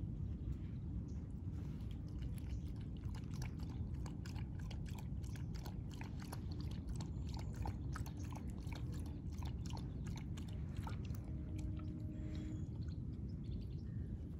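Dog lapping milk from a plastic bowl: a fast run of short wet clicks that thins out and stops near the end as it lifts its head, over a steady low rumble.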